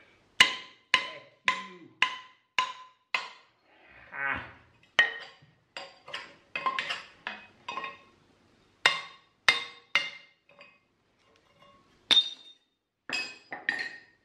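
Hammer blows on the parts of a Leinen 150 mm bench vise being taken apart, each strike ringing briefly. A steady run of about two blows a second comes first, then irregular groups of strikes with short pauses.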